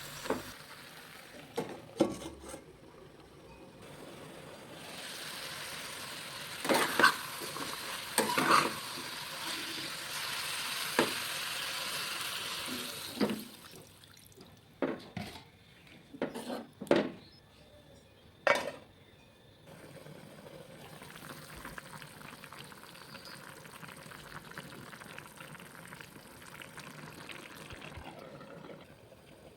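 Food sizzling in a hot pan while a spoon stirs it, knocking and scraping against the pan now and then. The sizzle is strongest for several seconds in the first half, then settles to a fainter hiss.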